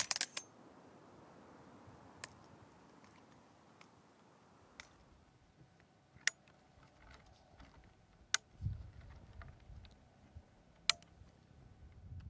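Manfrotto BeFree Live tripod being set up by hand: its flip-lever leg locks and leg joints give sharp single clicks, a cluster right at the start and then about one every two seconds, with a short low handling rumble about two-thirds through.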